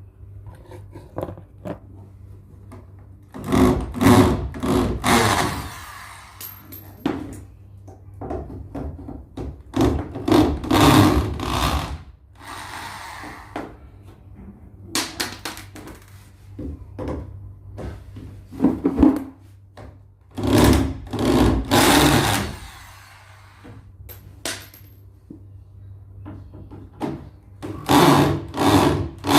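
Electric hand drill running in five short bursts of one to three seconds each, with small knocks and clicks of handling in between.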